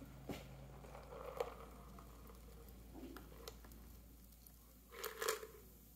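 Faint sounds of a shaken espresso martini being poured from a metal cocktail shaker into a martini glass: a soft trickle with scattered light clicks, and a brief louder clatter about five seconds in.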